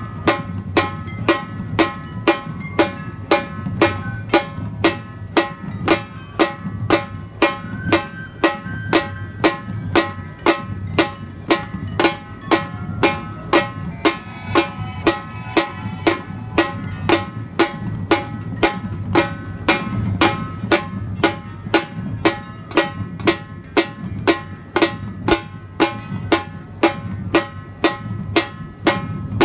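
Music with a steady drum beat, about two strikes a second, over held chords.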